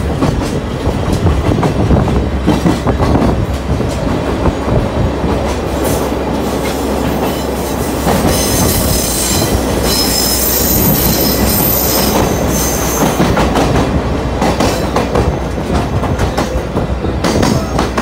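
Trolley train of the Sagano Scenic Railway running, with the clatter of its TR209 bogies over the rail joints. From about 8 to 13 seconds in the wheels give a high squeal.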